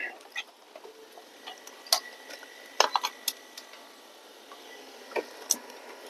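A few light, scattered clicks and taps as a USB keyboard is handled on the bench, with a faint thin high tone for a second or two in the middle.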